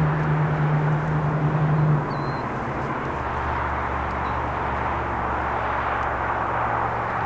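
Jet noise from a departing Boeing 747-8F's four GEnx engines: a steady rushing rumble. A strong low hum in it stops about two seconds in, leaving a deeper rumble.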